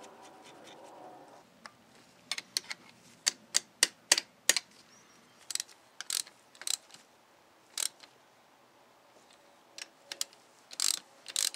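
Sharp metallic clicks and clinks of a socket ratchet wrench and extension working a bolt on a hydrostatic transmission housing, scattered singly at first, with short runs of ratchet clicking near the end.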